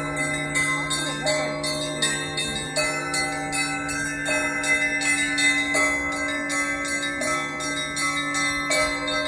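Russian Orthodox church bell ringing: small bells chiming rapidly over a figure on the middle bells that repeats about every second and a half, with a low steady bell tone underneath.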